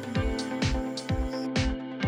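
Background music with a steady drum beat over a sustained low note.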